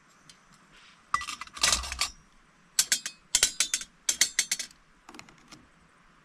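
Light metallic clinks and scrapes of Trangia 27 aluminium stove parts as a simmer ring is fitted over the alcohol burner to turn the flame down to a simmer. The clicks come in several quick clusters, starting about a second in and petering out near the end.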